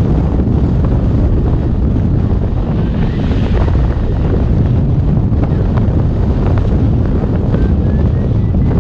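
Wind rushing over the microphone in flight: a steady, loud buffeting with a deep rumble.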